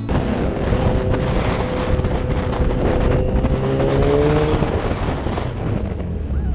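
Sport motorcycle riding along a road, picked up by a helmet-mounted camera: steady wind rush over the microphone with the engine's drone beneath. A faint tone rises a little about four seconds in.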